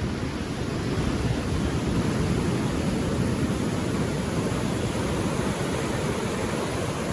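Ocean surf washing onto the shore at low tide, a steady rushing noise, with wind rumbling on the microphone.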